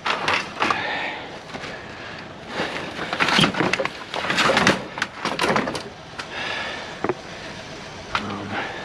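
Scrap metal and debris being handled in a dumpster: an irregular run of clanks, knocks and scrapes, with brief metallic ringing now and then.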